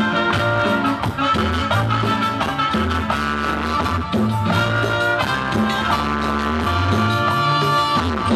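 A live band playing an instrumental passage: a steady beat on a drum kit under sustained melody notes and a strong bass line.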